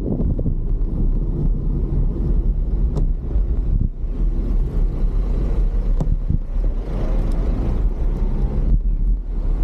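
Wind and road rumble picked up by a bicycle-mounted Insta360 X3's built-in microphone while riding, with a sharp tick about three seconds in and another about six seconds in.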